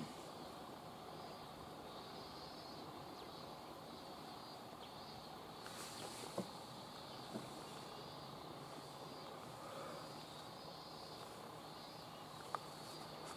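Faint, steady outdoor background noise: a constant high-pitched drone over a low hum, with a few light clicks near the middle and one sharp tick near the end.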